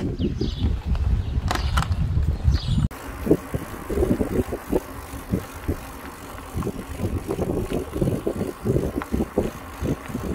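Mountain bike riding along a paved path: tyre rumble with a patter of small knocks and rattles, and wind on the microphone. The sound changes suddenly about three seconds in, where heavier wind rumble gives way to the lighter rolling noise.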